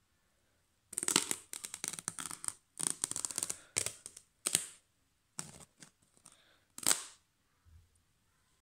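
Knife blade cutting and tearing through a thin sheet of packing foam, giving a series of crackly strokes that start about a second in and stop about a second before the end.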